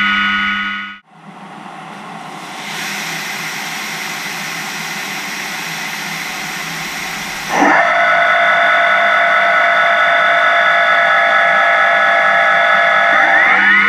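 High-pressure coolant jetting from the nozzles of slim hydraulic tool-holder chucks, a steady hiss. After a brief drop-out about a second in, the hiss builds up. About halfway through, the sound steps up louder and a set of steady tones joins the hiss.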